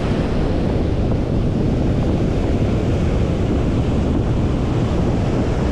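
Wind buffeting the microphone over the steady rush of rough, choppy surf washing up the sand, with no break between waves.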